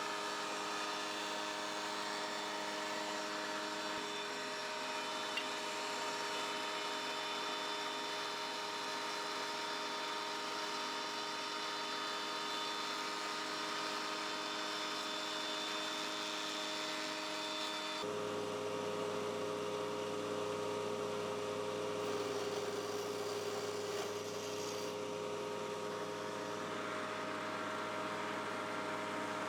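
Steady electric hum of a running motor, holding many fixed tones; about eighteen seconds in the mix of tones changes abruptly and then holds steady again.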